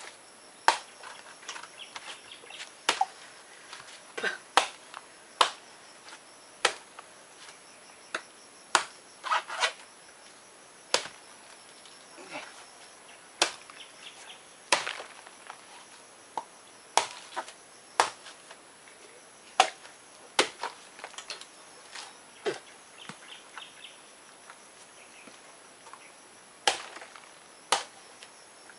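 Large knife hacking into the husk of a young coconut (botong): sharp chopping strikes, one every second or two at an uneven pace, sometimes two or three in quick succession.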